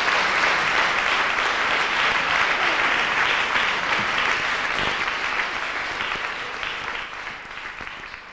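Audience applauding in a hall, a dense steady clapping that dies away over the last couple of seconds.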